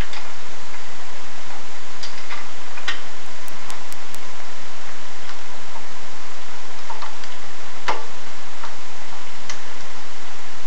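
Scattered light clicks and taps at an irregular pace, the loudest about eight seconds in, over a steady hiss: small metal tools and engine parts being handled.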